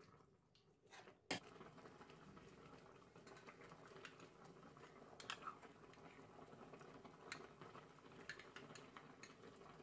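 Stainless steel pot of chicken-bone broth and wild mustard greens bubbling faintly at the boil, with small clinks of a ladle or spoon. A sharp click comes about a second in, and the bubbling is heard after it.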